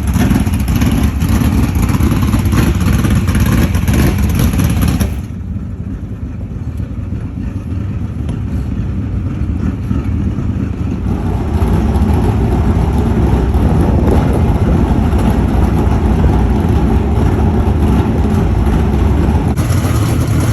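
Loud dirt-track modified race car engines running. The sound changes abruptly about five seconds in, dropping quieter, and grows louder again around eleven seconds.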